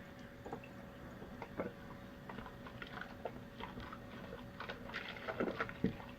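Faint, scattered wet squelches and small clicks of shaving-cream lather being worked by hand.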